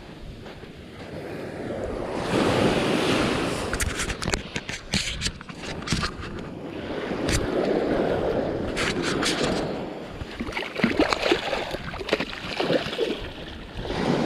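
Ocean surf washing onto a sandy beach, swelling twice as waves come in, with scattered sharp clicks close by.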